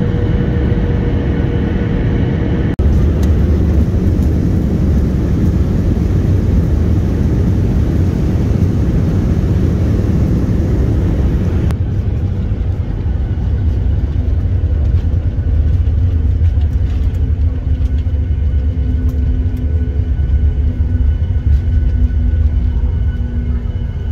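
Steady, loud rumble of jet engine and airflow noise heard from inside an airliner's cabin on the approach to landing. The noise shifts abruptly about three seconds in and again about twelve seconds in.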